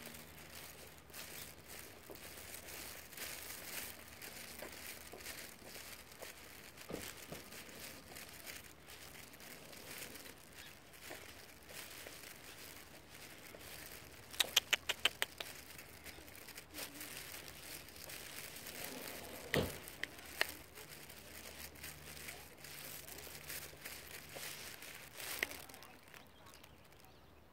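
Faint outdoor sounds of walking with a small dog on a leash: footsteps and light rustling. A quick run of about seven sharp clicks comes about halfway through, and a few single clicks follow later.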